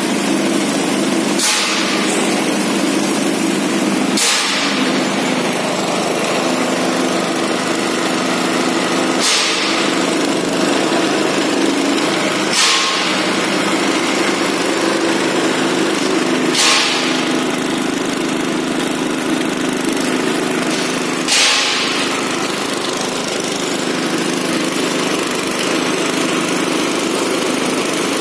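Small petrol engine running steadily, belt-driving a flexible screw conveyor that is moving granular material through its tube. A few brief sharp noises stand out over the engine now and then.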